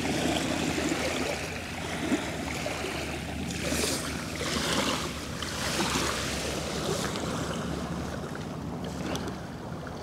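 Small North Sea waves lapping and washing at the water's edge, close by, with several surges a second or so apart in the middle.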